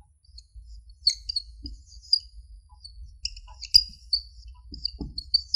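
Marker squeaking on a whiteboard as characters are written: a run of short, irregular high squeaks, one per stroke, starting about a second in, with a few faint taps and a low steady hum underneath.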